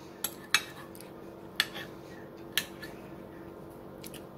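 A metal fork clinking a few times against a ceramic dinner plate, with sharp separate clicks over a faint steady hum.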